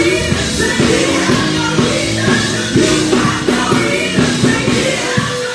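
Women's gospel vocal group singing live into microphones, amplified through stage speakers over loud backing music with drums.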